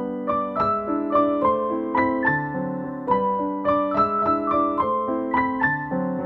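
Background piano music: a gentle melody of evenly spaced notes, about three a second.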